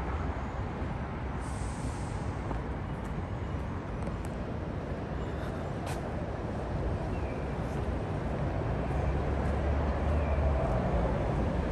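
City street ambience: a steady low rumble of road traffic, growing louder near the end, with a brief hiss about a second and a half in.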